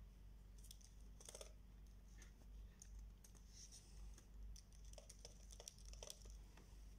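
Faint typing on a computer keyboard: scattered, irregular key clicks over a low steady hum.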